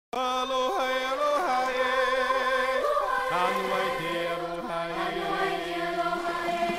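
Music intro of chant-like voices holding long notes and sliding from one pitch to the next, with a lower held note joining through the middle.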